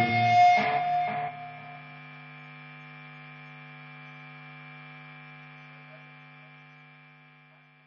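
The end of an alternative-rock song: the band plays loudly for about the first second, then cuts off, leaving one steady humming held tone that slowly fades out.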